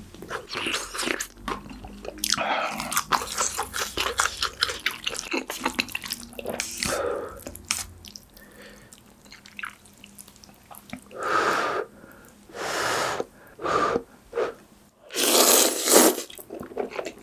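Close-miked wet chewing of kimchi stew, then ramen noodles slurped up in several loud slurps in the second half.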